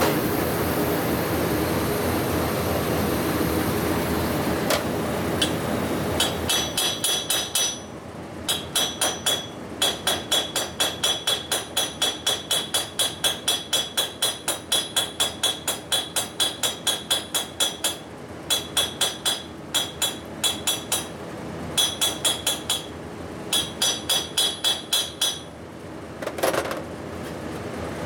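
A TIG welding arc buzzes for the first several seconds. Then a hammer taps rapidly and evenly, about four strikes a second with a metallic ring, in runs broken by short pauses. It is peening the fresh weld on a 1961 Harley-Davidson panhead's aluminum cylinder head, compressing the hot metal into the part.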